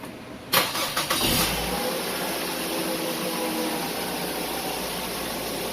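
2004 Mazda 3's 2.3-litre four-cylinder engine starting: the starter cranks for about a second from half a second in, the engine catches, then it settles into a steady idle. It runs on freshly repaired ignition coil pigtails, idling well, with the misfire from the broken pigtails cured.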